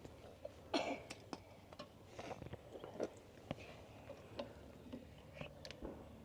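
Faint, irregular clicks, taps and a brief scrape of hand grips working on a stuck metal part, with no steady machine running.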